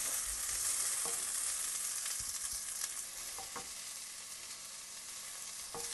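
Bell pepper strips, onion and garlic sizzling in hot oil in a stainless steel pan while a wooden spoon stirs them, with a few light knocks of the spoon against the pan. The sizzle eases slightly toward the end.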